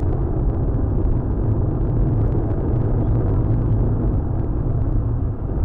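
Steady engine and road noise inside a moving car's cabin, a low, even rumble with no sudden events.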